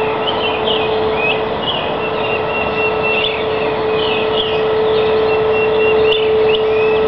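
An unidentified steady drone of one unwavering pitch, held throughout over a broad hiss, with birds chirping over it.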